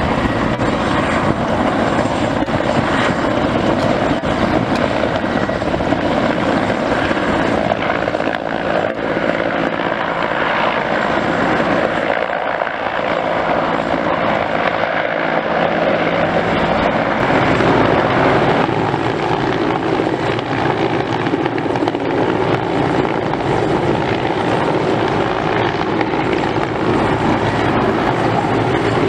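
Mil Mi-8 helicopter flying low and close: the main rotor beating over the steady running of its twin Klimov turboshaft engines. Loud and continuous, swelling slightly about two-thirds of the way through.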